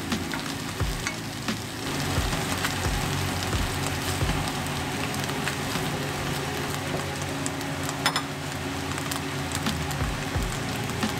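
Udon noodles and greens sizzling in a frying pan while being tossed with metal tongs, with small clicks and scrapes of the tongs against the pan and one sharper click about eight seconds in.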